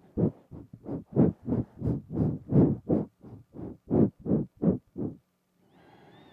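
Short nasal breaths puffed right against a binaural microphone, about three a second, stopping about five seconds in. A faint steady high-pitched tone follows near the end.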